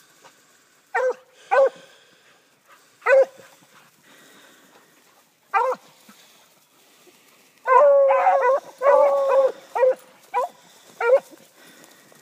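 Several hound dogs barking. First come single sharp barks a second or more apart. About eight seconds in, longer drawn-out bays overlap for a couple of seconds, followed by a few more short barks.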